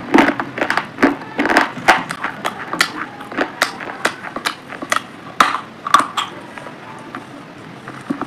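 Close-miked crunching and chewing of a hard, brittle item: a run of sharp, crisp crunches with wet mouth sounds, thinning out and getting quieter in the last couple of seconds.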